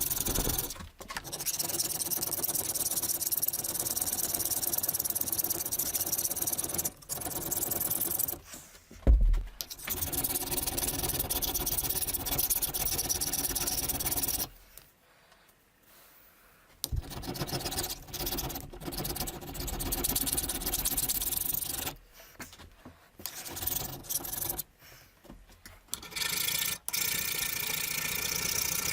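A power tool runs in several stretches, working on a metal hammer head, with short stops between runs and a longer stop near the middle. A single loud knock comes about nine seconds in.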